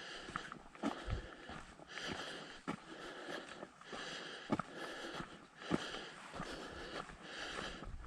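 A hiker breathes hard and steadily, a breath about every second and a half, while his footsteps crunch and knock on a dirt trail.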